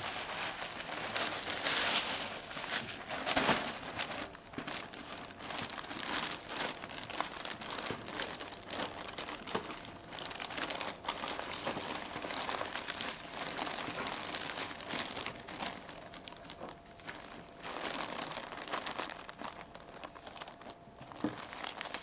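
Clear plastic bag crinkling and rustling as it is shaken and handled, tumbling a raven with salt inside to coat its outside for field preservation. The crinkling comes in loudest bursts about two and three and a half seconds in.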